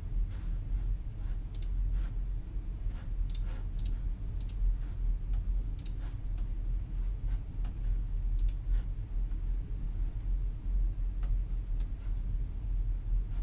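Quiet office room tone, a steady low hum, with scattered irregular clicks of a computer keyboard and mouse. The clicks come in small clusters and thin out after about nine seconds.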